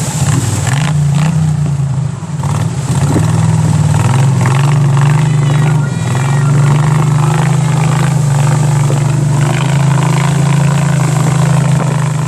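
Boat engine running steadily, its pitch wavering slightly in the first few seconds.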